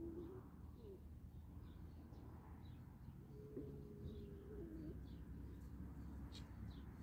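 Faint birdsong: small birds chirping, and a dove cooing with short low hoots near the start and a longer held coo in the middle.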